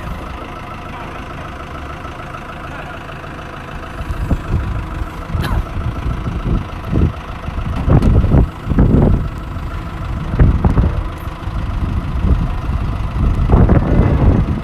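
An engine running steadily, with uneven louder low surges through the second half.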